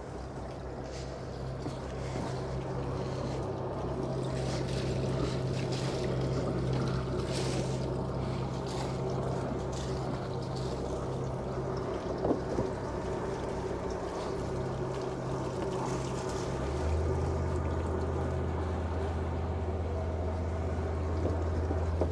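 Catamaran's inboard engines idling in neutral, a steady low hum. A light knock comes about halfway through, and about three-quarters of the way in a second, lower steady drone joins in and becomes the loudest sound.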